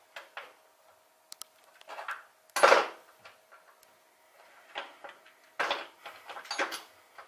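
Small metal hardware being handled, such as washers and nuts: scattered light clinks and rattles, with one louder clack about two and a half seconds in and a run of clicks near the end.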